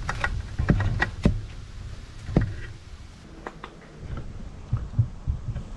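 Hands pushing an e-bike's controller and its wiring into the frame's down tube: irregular knocks, clicks and cable rustling, busiest in the first half.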